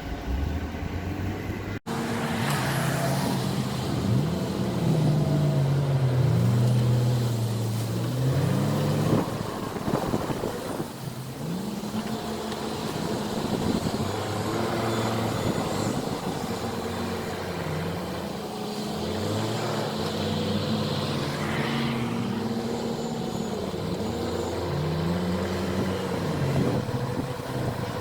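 JCB 4CX backhoe loader's diesel engine working under load, its pitch rising and falling over and over as the hydraulics dig. The sound breaks off briefly just before two seconds in.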